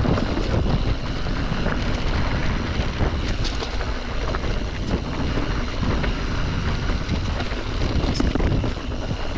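Wind rushing over the microphone while a mountain bike rattles and clatters over a rooty trail descent.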